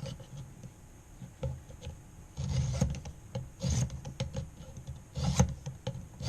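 Sharpening stone of a guided knife-sharpening system stroked along a knife edge: quiet scraping, then three louder strokes starting about two seconds in.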